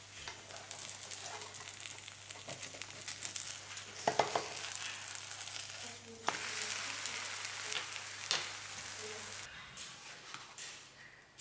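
Thin egg-batter Swiss omelette frying in oil in a pan, a steady sizzle full of small crackles. A few sharp knocks break in, about four seconds in, at about six seconds and near eight seconds, as the omelette is turned.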